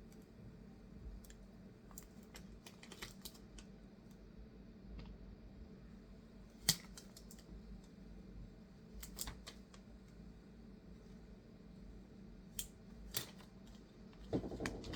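Scattered light clicks and taps of small parts and tools being handled on an opened laptop, over a faint steady hum.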